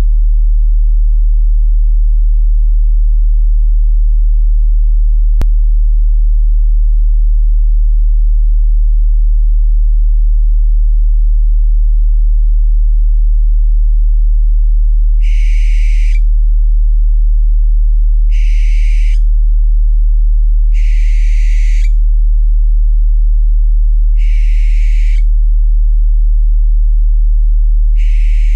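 Owl calls, five of them about a second each, starting about halfway and coming every two to four seconds, over a loud deep steady tone that hums throughout. A single click about five seconds in.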